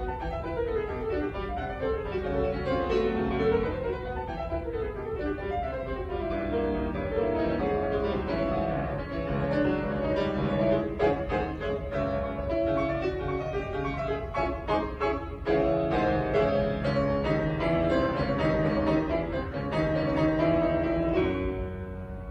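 Grand piano solo played by a child, with quick runs of struck notes over a lower accompaniment; the playing thins out just before the end.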